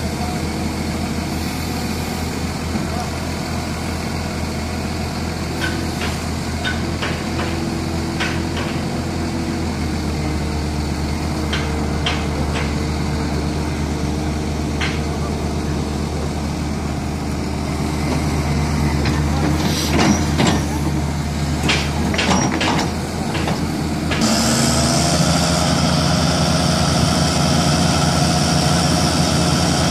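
Heavy diesel engines of two excavators running, the engine note stepping up as they work under load to free the one bogged in mud. A run of sharp metal clanks comes about 20 seconds in. Shortly after, the engine revs up suddenly to a higher, harder-working note with a hiss.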